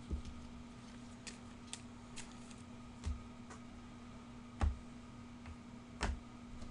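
Scattered light clicks and taps at an uneven pace, the loudest a little past halfway and near the end, over a steady low hum.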